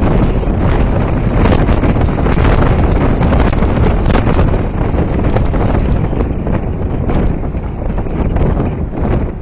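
Loud wind buffeting the microphone of a camera mounted on the bonnet of a moving car, with crackling gusts over a low rumble of the car driving on the road.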